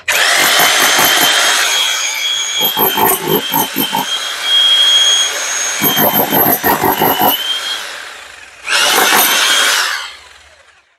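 Progen 9515-HG 6 kg, 1250 W electric demolition hammer with a point chisel, running and pounding into a lump of stone and breaking it apart, with a motor whine over rapid blows. It runs for about eight seconds, eases off, runs again in a short burst about nine seconds in, then winds down.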